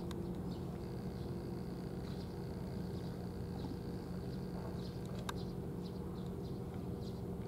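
Outdoor ambience: a steady low hum, with faint short high chirps and a thin high tone held for a few seconds. A single sharp click about five seconds in.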